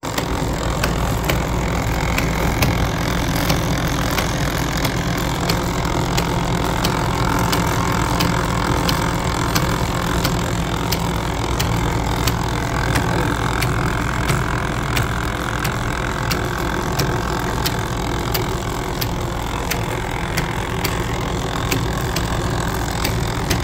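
Do-nothing machine running: an electric motor and gearbox turning steel shafts through roller chains, a link belt and bevel gears, giving a steady mechanical whir and hum. Light clicks come through several times a second.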